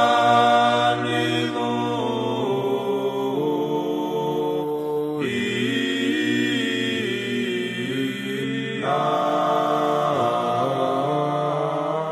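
Choir singing a Georgian Orthodox chant in several parts, long held chords moving to a new chord about five seconds in and again near nine seconds.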